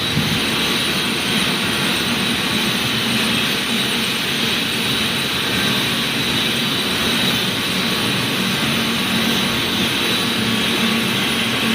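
Wire-making machinery running steadily: a continuous mechanical noise with a low hum underneath.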